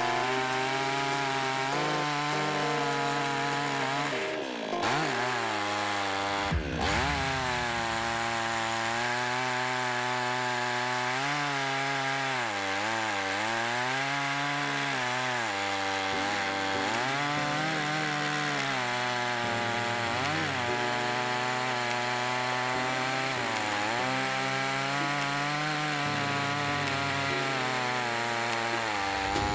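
HAIGE HG-F5200 52cc two-stroke chainsaw running at full throttle on a chainsaw mill, ripping lengthwise through a rotting pine log. The engine pitch sags and recovers several times as the chain bogs down in the cut.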